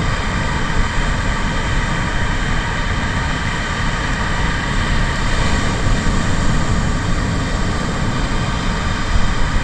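Steady roar of wind and breaking surf on the beach, loud and even throughout.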